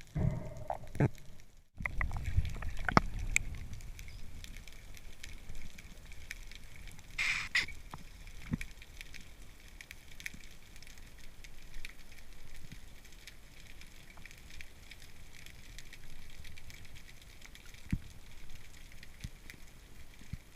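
Underwater sea ambience: a steady crackle of faint clicks through the water. A few heavy knocks and thuds come in the first three seconds, and a brief hiss about seven seconds in.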